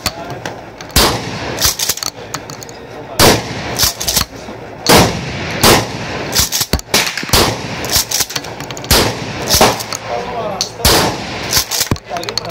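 Gunshots from a Remington 870 Wingmaster pump-action shotgun being fired repeatedly, roughly one every one to two seconds. The shots vary in loudness, and each is sharp with a short ring after it.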